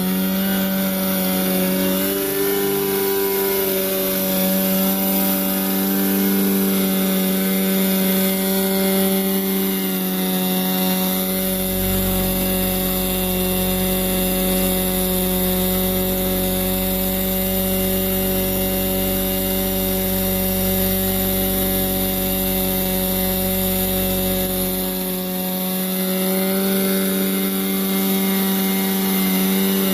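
GMP Cricket radio-controlled model helicopter, its small glow engine running at a steady high buzzing pitch with the main rotor turning. The pitch sags slightly near the start and again near the end. In the middle, a low rumble of rotor downwash buffeting the microphone joins, as the machine comes close.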